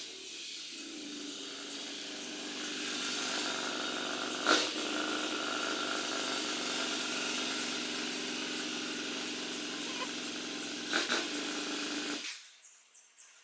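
A vehicle engine running steadily, with a couple of sharp clicks, then switched off and cutting out suddenly near the end.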